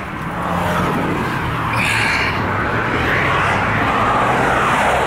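Car running on the road: a steady engine hum under a wavering rush of road and wind noise coming in through the open side window.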